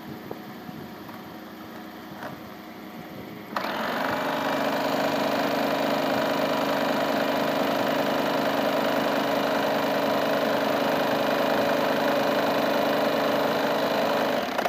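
Electric household sewing machine starting up about three and a half seconds in and then running steadily, stitching fabric.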